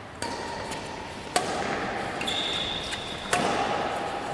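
Badminton rackets striking a shuttlecock in a doubles rally: three sharp hits, the last two the loudest and about two seconds apart, with a high-pitched squeak between them.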